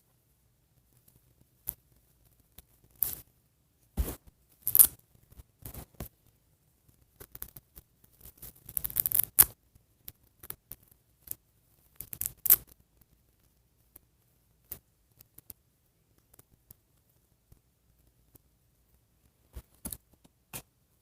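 Small plastic doll and hair piece being handled: irregular clicks, scrapes and rustles in short clusters as a clip-on hair piece is fitted onto the doll's head, busiest about halfway through.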